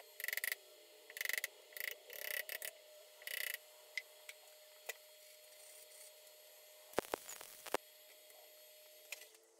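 Flux-core wire welder (Titanium Easy Flux 125) laying tack welds on steel: five short crackling bursts in the first three and a half seconds, each lasting a fraction of a second. About seven seconds in come two sharp knocks.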